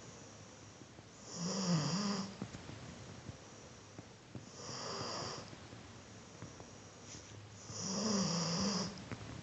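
A sleeping dog snoring: three snores about three seconds apart, each lasting about a second, with a low wavering buzz in the first and last.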